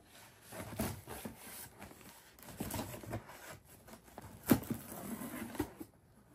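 Cardboard shipping box being opened by hand: uneven rustling, scraping and tearing of the box and its packing, with scattered clicks and one sharper snap about four and a half seconds in.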